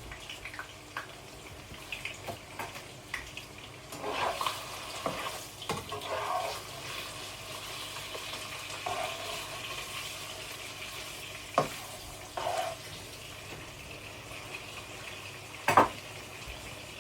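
Food sizzling steadily in a frying pan, with scraping and a few sharp clicks and knocks of kitchen utensils, including one near the middle and one loud knock near the end.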